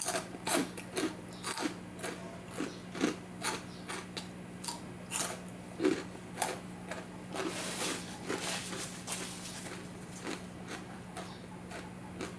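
Close-up mouth sounds of chewing crunchy pork cracklings (chicharon), about two crunches a second, thinning out near the end, with a steady low hum underneath.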